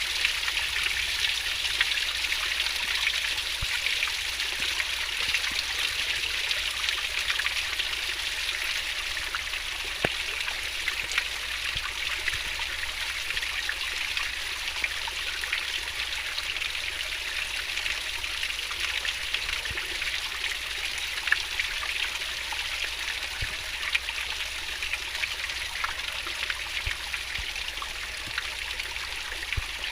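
Fast-flowing stream water rushing and splashing steadily, with small scattered drips and splashes.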